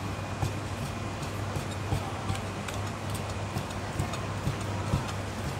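Cleaver slicing marinated beef tripe on a wooden chopping block: a run of light, quick knocks of the blade on the wood, with a steady low hum underneath.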